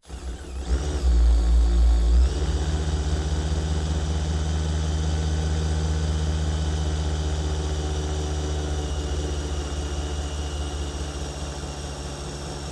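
Cordless drill running continuously under load, driving a wood dowel-cutting bit into a maple board. The motor is loudest for about the first two seconds, then settles into a steady run with a high whine. The bit cuts poorly and runs hot, which the user thinks may be down to it being dull.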